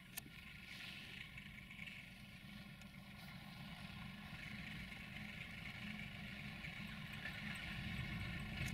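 Sulzer diesel engine of a CFR class 060-DA (LDE2100) diesel-electric locomotive running as it approaches, a low rumble growing steadily louder.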